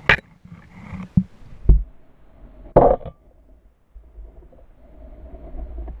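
Muffled underwater knocks and clicks of spearfishing gear being handled, heard through an underwater camera. A louder, longer burst comes about three seconds in, and a low rumble follows near the end.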